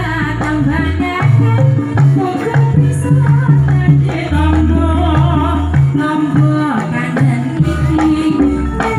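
A female singer singing a Javanese song into a microphone over a live band, with hand-drum strokes and a deep bass line that steps between notes, amplified through a PA.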